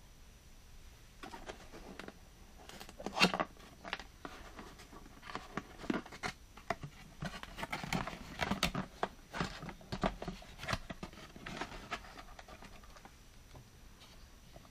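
Hands rummaging in a cardboard box and sliding a plastic toy jeep and trailer out against the cardboard: irregular scraping, rustling and light clicks, with the loudest knock about three seconds in.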